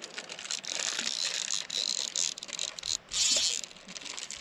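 Fly reel's drag buzzing and clicking as a hooked trout pulls line off it, with a louder, faster run about three seconds in.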